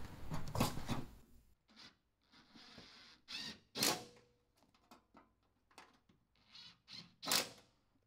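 Hands and a cordless drill working on the underside of a front-load washing machine. A low whir stops about a second and a half in, then comes a string of short scrapes and clicks, the loudest just before the middle and near the end.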